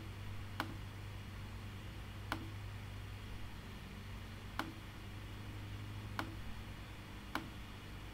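Computer mouse clicking: five sharp single clicks, a second or two apart, over a low steady hum.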